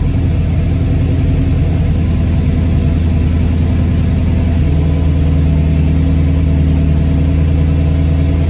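LS V8 engine fitted with Holley Sniper 2x4 dual-quad throttle-body fuel injection on E85, idling steadily at about 1200 RPM on its first run while the self-learning EFI adjusts its own idle tune.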